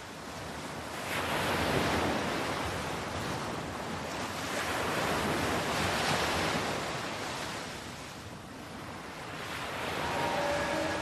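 A rushing noise that swells and ebbs every few seconds, like surf, with a few faint steady tones coming in near the end.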